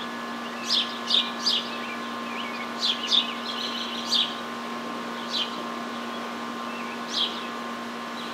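Small birds chirping outdoors: short, quick, falling chirps coming every second or so, over a faint steady hum.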